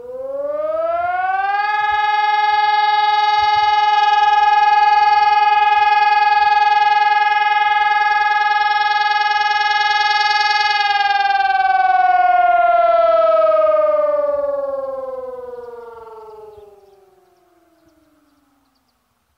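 HES 1200 siren sounding a test: its pitch rises over about two seconds to a steady tone with many overtones, holds for about nine seconds, then glides down and fades away.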